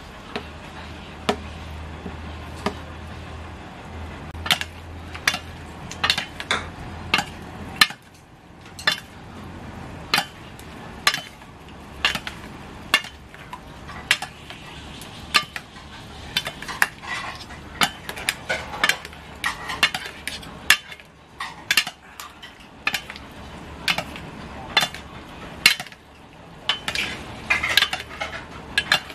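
Metal tongs and a spoon clinking against a stainless steel bowl while shrimp, lemon slices and chillies are tossed in their sauce: many sharp, irregular metal clicks over a soft wet stirring noise.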